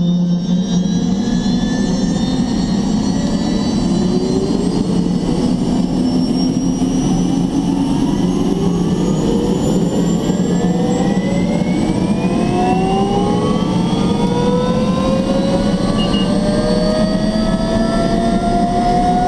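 Helicopter turbine engine starting up: a steady hum under several whining tones that climb steadily in pitch from about four seconds in as the engine spools up.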